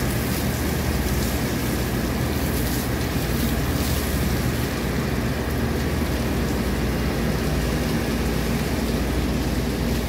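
Steady rushing of water spraying onto and falling from a package-type air-conditioning unit as it is washed down during maintenance, over a steady low machine hum.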